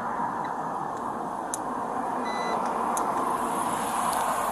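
Steady road noise of a passing vehicle that swells slightly and then fades near the end, with one short electronic beep a little over two seconds in.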